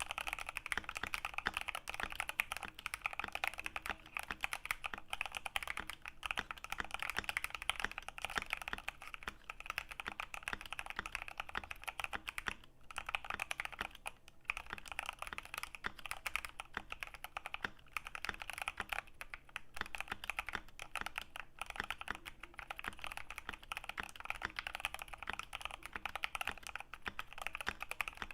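Typing on a mechanical keyboard with Gateron Pro Brown tactile switches and PBT keycaps: a fast, continuous clatter of keystrokes, with a couple of brief pauses about halfway through.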